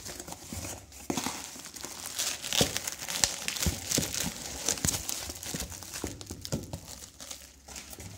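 Bubble-wrap and cardboard packaging handled and pulled apart as a boxed phone is drawn out, a dense run of plastic crackles and rustling that dies down near the end.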